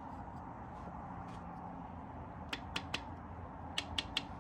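Light, sharp clicks in two quick groups of three or four, over a steady low hum.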